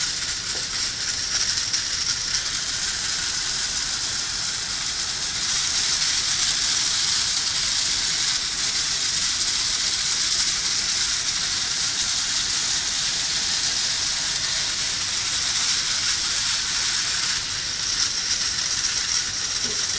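Geared motors and compound omni-wheels of a LEGO robot running across a tile floor: a steady, hissing whir that grows a little louder and brighter about five seconds in.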